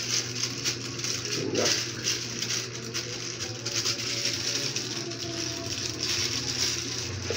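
Clear plastic packaging crinkling and rustling as it is handled and unwrapped, a dense run of small crackles, over a steady low hum.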